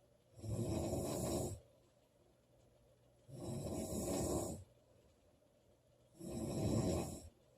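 A woman snoring loudly: three snores about three seconds apart, each lasting just over a second.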